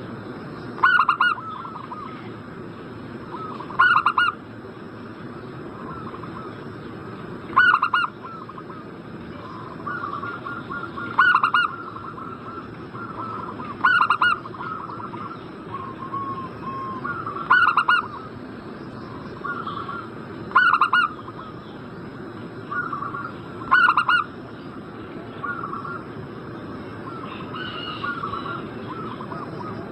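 Zebra doves cooing: a loud call about every three seconds, eight in all, with softer cooing between.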